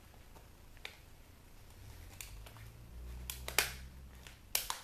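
Light clicks and knocks of small plastic and metal parts of a dismantled CD/tape player being handled, with a couple of sharper clacks just after the middle and near the end, over a soft low rumble midway.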